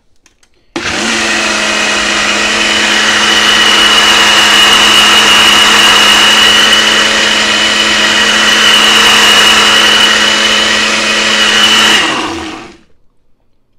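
Ninja personal blender's motor blending cooked sea moss into a gel: it starts abruptly about a second in, runs at a steady pitch with a high whine for about eleven seconds, then stops and spins down near the end.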